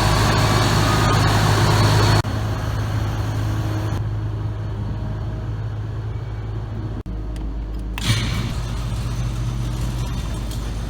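Heavy farm machinery engine running steadily, heard in a few short clips cut together, with abrupt changes in the sound at each cut.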